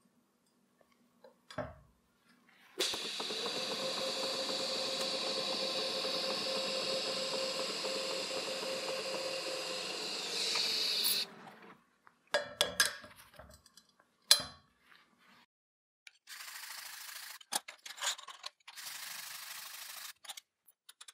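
Pulsed TIG welding arc running steadily for about eight seconds, a buzz with a steady mid-pitched tone, briefly louder just before it cuts off. Afterwards a few clicks and a few seconds of scraping.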